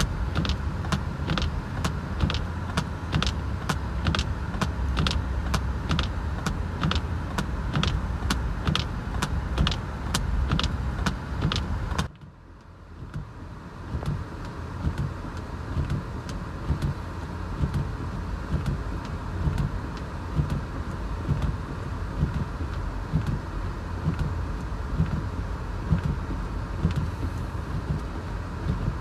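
Steady low rumble of a car on the road, with a regular ticking about twice a second. About twelve seconds in the sound drops out abruptly, then the rumble comes back with the ticking much fainter.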